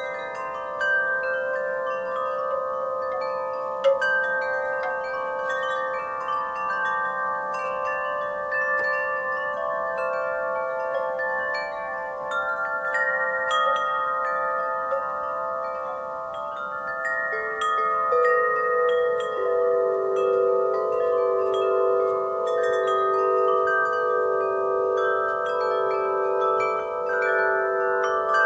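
Wind chimes ringing in the breeze: many long-sustaining metallic tones overlapping, set off again by irregular strikes, with one sharper strike about four seconds in. From about halfway a lower note joins with a slow wavering beat.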